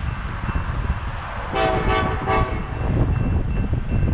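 Distant locomotive air horn sounding a chord of several notes for about a second, broken into two or three quick blasts, over a steady low rumble.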